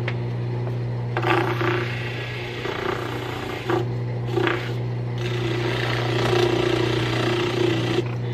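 Old AC electric motor running with a steady mains hum. A hand presses a rag against its spinning shaft to load it, adding rough rubbing and scraping in bursts, heaviest over the second half.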